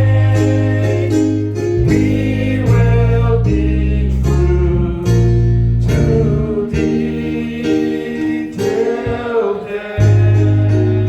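Gospel music: singing over guitar and a strong bass line.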